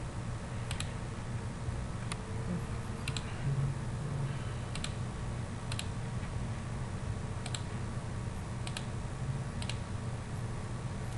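Computer mouse clicks, sparse and some in quick pairs, over a steady low hum of room or computer noise.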